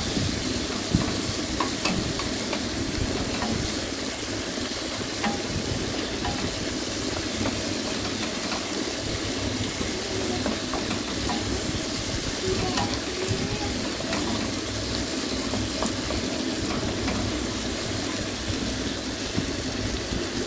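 Chopped onion and tomato sizzling in hot mustard oil in a kadai, with a spatula scraping and tapping against the pan now and then as it is stirred.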